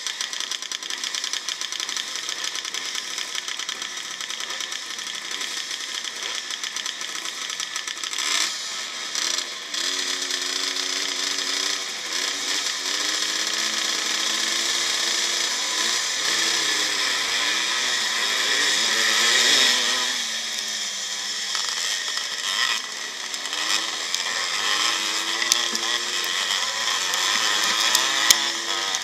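Vintage two-stroke motocross engines, the onboard 1955 Maico's among them, revving at the starting gate and then pulling away as the race starts, the pitch rising and falling repeatedly.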